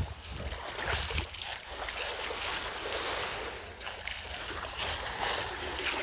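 Small waves lapping at a sandy shoreline, with wind rumbling on the microphone.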